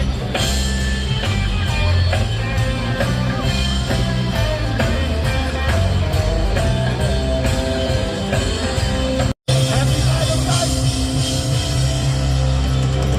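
Rock music with singing playing steadily, broken by a very short gap of silence about nine seconds in.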